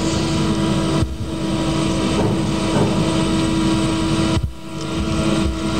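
Steady electrical hum and rumble from the hall's microphone and sound system, with short drop-outs about a second in and again at about four and a half seconds.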